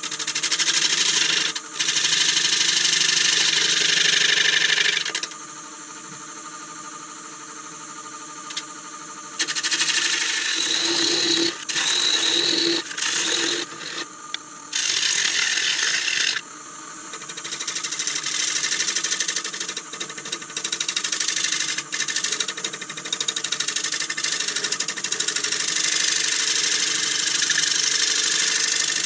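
A gouge cutting spinning beech on a Nova Saturn wood lathe: a loud hiss of shavings coming off, in three long spells of cutting. In the pauses, the lathe's motor hums steadily.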